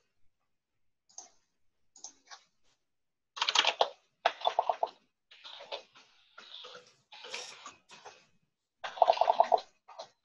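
Computer keyboard typing in irregular bursts of quick clicks, with short pauses between bursts.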